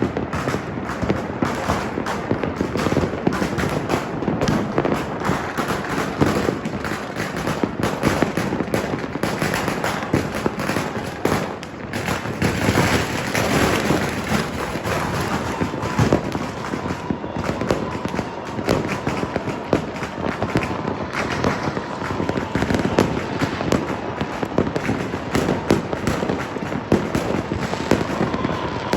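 Many firecrackers and fireworks going off at once: a dense, unbroken crackle of overlapping bangs. A faint held tone, falling slightly in pitch, runs under it through the second half.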